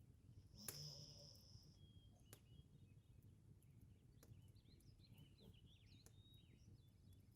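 Very quiet room tone with a low hum; about a second in, a sleeping Labrador retriever breathes out once, a short airy wheeze through the nose. A few faint clicks and small high chirps follow.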